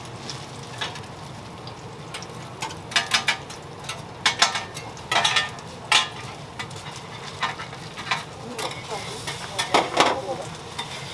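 Food sizzling on a flat griddle, with irregular sharp scrapes and clinks of metal utensils working the food.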